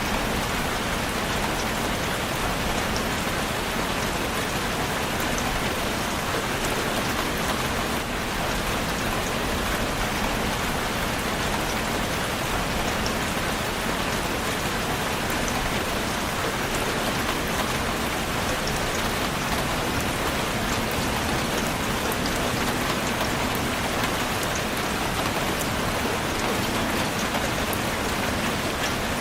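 Steady rain falling on a surface: a dense, even hiss with many small drop ticks, unchanging throughout.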